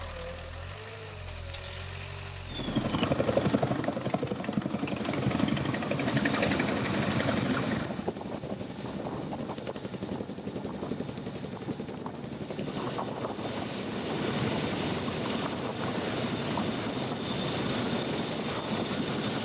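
Boeing CH-47 Chinook tandem-rotor helicopters: fast rotor chop with the twin turboshaft engines running, as the helicopters hover in and set down; a steady high turbine whine joins about two-thirds of the way through. The first few seconds hold only a low, quieter vehicle engine running before the rotor noise cuts in.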